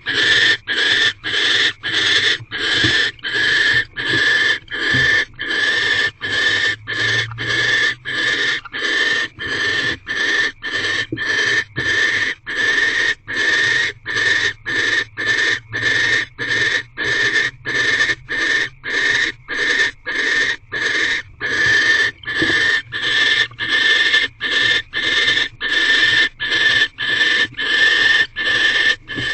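Barn owls giving rapid, rhythmic hissing 'snoring' food-begging calls, about three every two seconds without a break, typical of begging for the rodent the male has brought.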